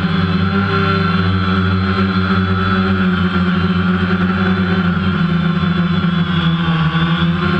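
DJI Phantom quadcopter's electric motors and propellers whirring steadily in flight, heard up close from the GoPro mounted on the drone. The pitch wavers slightly, dipping a little near the end.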